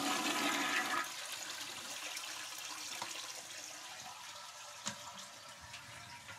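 Toilet flushing: a loud rush of water, strongest in the first second, then tapering into a steadily fading flow. Heard through a wireless clip-on microphone.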